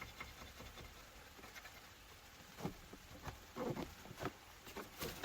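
Small needle file scraping on the plastic seatbelt guide of a Mazda MX-5 ND, a few short faint strokes in the second half. The file is smoothing off rough, raised edges that grab the belt webbing and stop it retracting properly.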